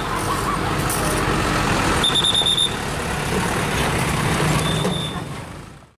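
Road traffic crossing a railway level crossing: a motorcycle and a diesel dump truck running as they pass over the tracks. Two short high-pitched tones sound, about two seconds in and again near the end, before the sound fades out.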